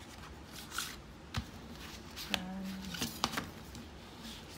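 Paper stationery handled by hand: sticky-note booklets and sticker sheets rustling and tapping as they are flipped open and moved about, in short scattered rustles with a few sharp ticks. A short low hum sounds a little before halfway.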